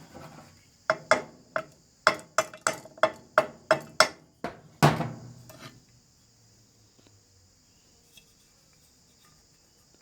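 Metal parts of a disassembled 12 V electric snail horn being tapped and clinked: a quick run of sharp, ringing taps, about four a second, with a louder knock near the end, then it stops. The ring of the metal is what tells whether the horn body is alloy.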